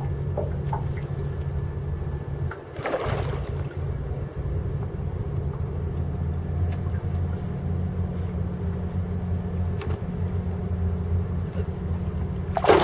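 A steady low motor hum throughout, with a brief splash about three seconds in and a louder splash near the end as the hooked garfish thrashes at the surface.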